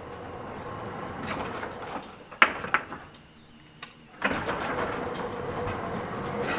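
Elevator machinery running with a steady rumble and faint hum. About two and a half seconds in there are two sharp metal clanks in quick succession. After a short quieter spell and a click, a louder steady rumble starts suddenly.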